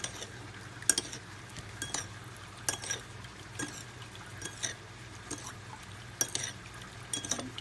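Spoon stirring sugar and water in a small bowl, clinking against the sides about once or twice a second at an uneven pace, to dissolve the sugar for a fish-sauce dip.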